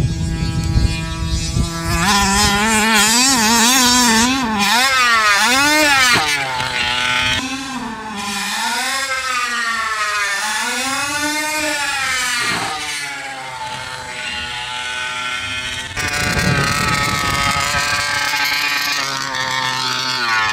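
Gas two-stroke engine of a 1/5-scale HPI Baja buggy revving up and down as the throttle is worked while it drives and jumps. The pitch swoops rapidly for a few seconds, then rises and falls in slower swells, and runs steadier and higher near the end.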